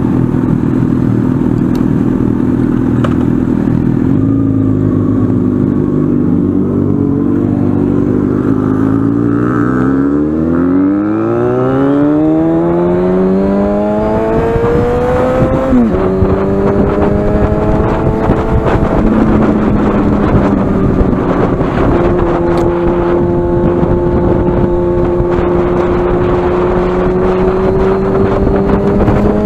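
Yamaha FZ6N's 600 cc inline-four with an aftermarket carbon-fibre exhaust, heard onboard while riding. It runs at low revs at first, revs up with a rising note from about ten seconds in, and drops in pitch sharply with an upshift around the middle. After a smaller shift it holds a steady note that climbs slowly near the end.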